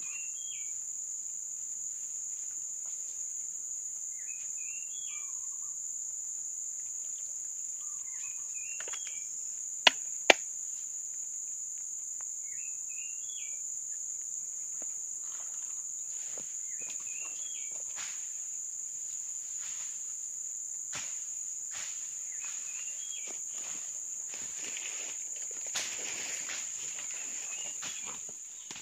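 Steady high-pitched insect drone of the swamp forest, with a bird giving a short chirped call about every four seconds. Two sharp clicks come about ten seconds in, and a spell of rustling near the end.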